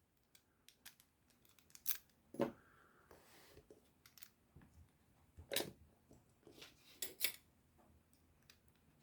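Handling noise of small metal lock parts and tools: scattered light clicks and taps, the loudest about two and a half, five and a half and seven seconds in.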